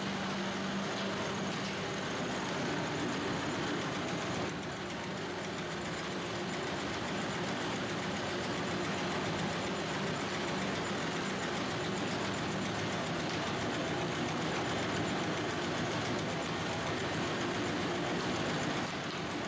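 Olive-oil mill machinery running: a steady mechanical din from the motors, conveyors and olive washer, with a low hum that stops about two seconds in.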